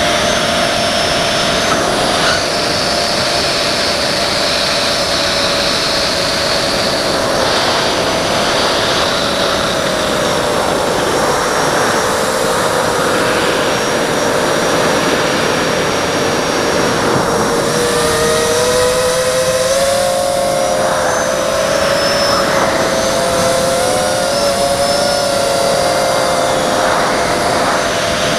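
Thorax hexacopter's six Multistar Elite 2204 2300KV brushless motors driving Gemfan 5030 three-blade props: a steady buzzing whine of several close pitches over rushing air noise. The pitch wavers with the throttle, dipping a little around the middle, then climbing and splitting apart for a few seconds past the two-thirds mark.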